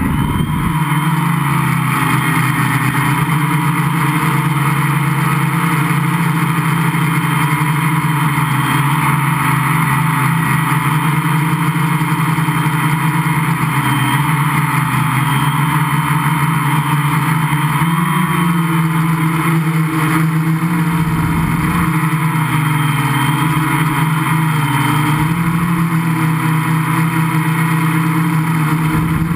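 Gaui 500X quadcopter's motors and propellers, recorded from on board, buzzing steadily in flight with a strong steady pitch that wavers slightly as the throttle changes.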